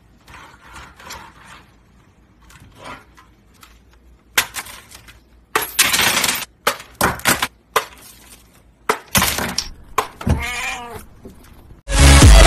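A run of loud clattering crashes as things hit and fall onto a desk, with a short wavering cry a little before the end. Loud electronic dance music starts abruptly near the end.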